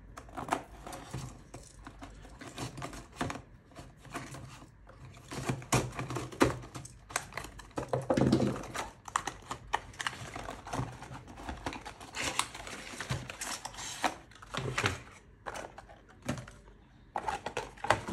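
A GoPro Enduro battery pack being unpacked by hand: irregular clicks, taps and rustling of the packaging, with denser rustling about halfway through and again a little later.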